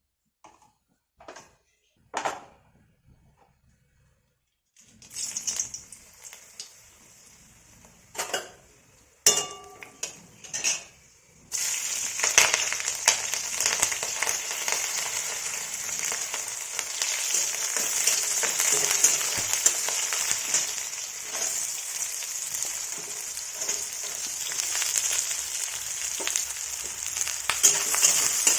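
Food frying in hot oil in a pan. A few utensil clicks come first, then about eleven seconds in a loud sizzle starts suddenly, as food goes into the hot oil, and it keeps sizzling steadily.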